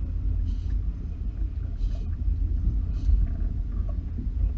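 Low steady rumble aboard a small open boat at sea, with water splashing against the hull in three short hissy splashes.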